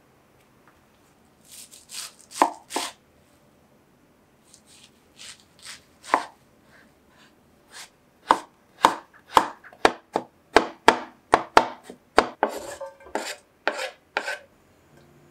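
Kitchen knife chopping on a wooden cutting board, mincing garlic. A few scattered knocks come in the first six seconds, then a fast, even run of chops at about three a second that lasts some six seconds.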